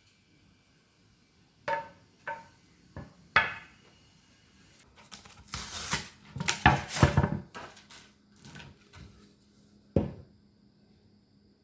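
Kitchenware clinking and knocking: a few separate clinks, some with a brief ring, then a dense run of clatter about six to seven seconds in, and one last knock near the end.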